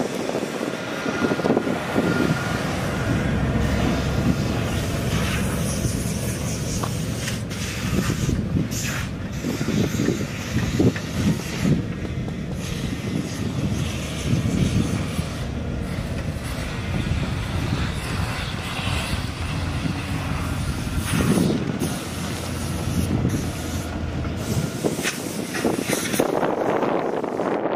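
Ford F150 pickup's 5.8 L V8 running, a steady low rumble with scattered rattles and knocks.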